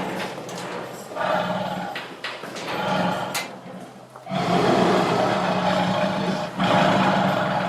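Tiger growling and roaring in several bursts of one to two seconds each, with the longest a little past the middle.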